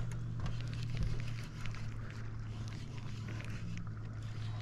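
A steady low hum, with scattered faint clicks over it.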